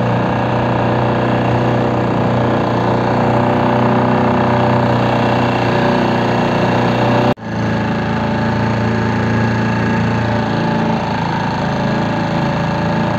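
Small outboard motor on an open fishing boat running steadily underway. The sound cuts out for an instant about seven seconds in and then resumes at the same pitch.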